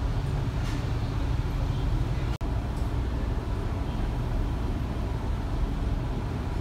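Steady low engine rumble heard inside a ferry's passenger cabin. It cuts out for an instant about two and a half seconds in, then a similar steady low rumble carries on.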